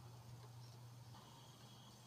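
Near silence: faint room tone with a low, steady hum.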